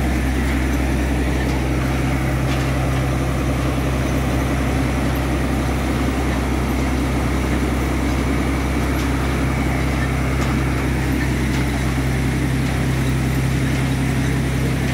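Diesel engine of a bored-piling rig running steadily at constant speed, a low, even hum.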